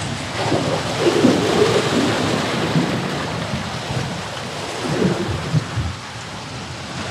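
Surf washing against the rocks of a jetty, with wind buffeting the microphone: a steady rushing noise with low rumbling gusts.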